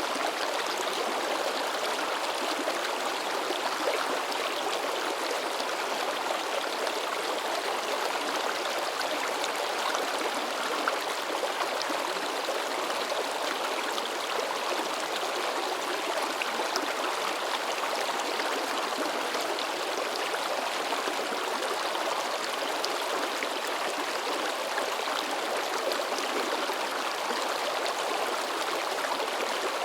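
A shallow river babbling and splashing over rocks: a steady, unbroken rush of running water.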